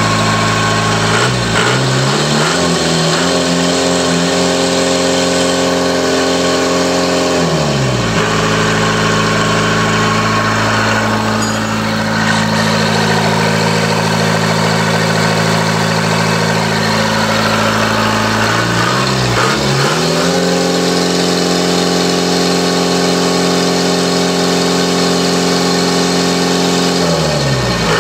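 Isuzu 4JG1 four-cylinder diesel engine running, revved up a second in and held for about six seconds, dropped back to idle, then revved up again about nineteen seconds in and let back down to idle near the end.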